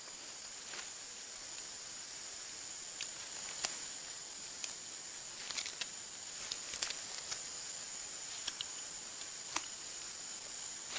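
Tropical rainforest canopy ambience: a steady high insect hiss, with about ten short, sharp clicks and chirps scattered through it.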